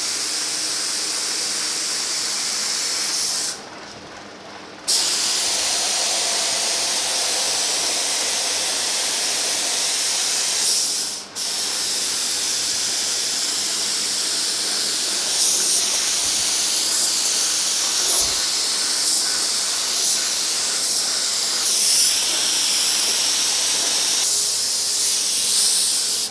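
Gravity-feed spray gun hissing steadily with compressed air as it sprays polyester primer. The spray stops for over a second about four seconds in and dips briefly about eleven seconds in, then cuts off at the very end.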